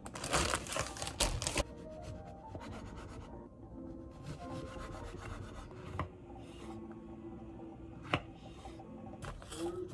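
A bag of sliced bread rustling as slices are pulled out, then a kitchen knife sawing through bread crusts on a wooden cutting board with a dry rasping sound, and a sharp knock of the knife on the board just after eight seconds as a strawberry is cut.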